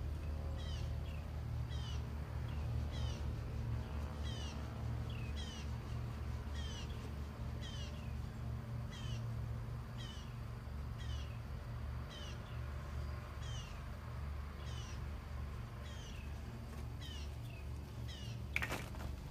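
An animal's short, high-pitched call, falling in pitch, repeated evenly about every three-quarters of a second over a steady low rumble, with one sharp knock near the end.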